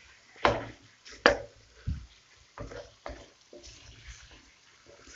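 A spatula scraping and clacking against a nonstick wok as curry-coated chicken pieces are stirred and turned: a run of irregular knocks and scrapes, the loudest two in the first second and a half.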